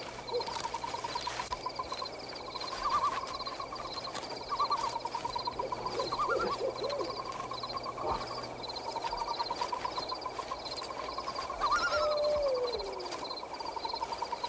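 Night-time woodland ambience: a steady chorus of rapid pulsed trilling, with scattered animal calls and one call falling in pitch near the end.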